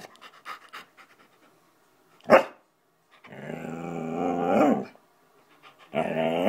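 Alaskan Malamute moaning: a short sharp yip about two seconds in, then a long drawn-out pitched moan that grows louder, and another moan starting near the end.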